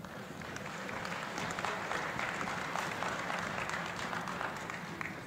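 Audience applause, a dense patter of many hands clapping, building about a second in and easing off near the end.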